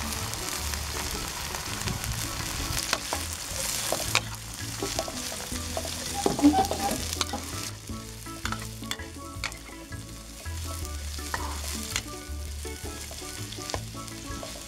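Julienned carrots, chillies and shallots stir-frying in hot oil in a wok, sizzling, with a metal spatula scraping and clacking against the pan. The sizzle is strongest in the first few seconds and then settles lower as the stirring goes on.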